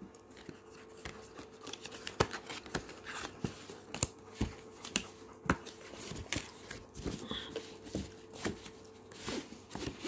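Hands opening a cardboard retail camera box: irregular taps, knocks and scrapes of cardboard and plastic packaging as the inner sleeve and tray are slid out.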